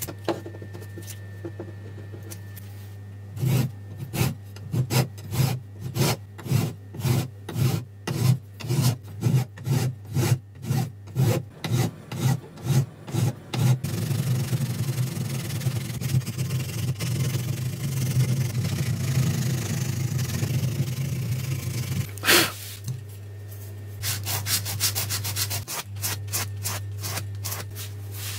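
Hand file scraping wood that is set in a metal frame, filing it flush. It starts with even back-and-forth strokes at about two a second, then goes to quicker continuous rubbing. A single sharp knock comes a little before the end, followed by a run of short, fast strokes.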